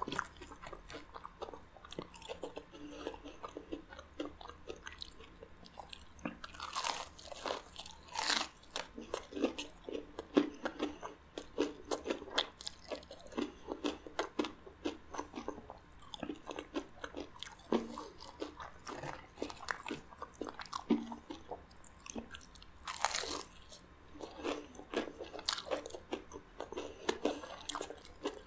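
Close-up biting and chewing of a crumb-coated fried chicken drumstick: wet chewing packed with crisp crackles from the coating, and a few loud crunches as bites are taken.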